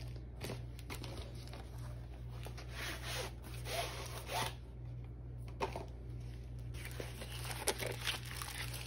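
Rustling and sliding of paper and plastic packaging in short, irregular bursts as a rolled diamond-painting canvas is handled and unrolled.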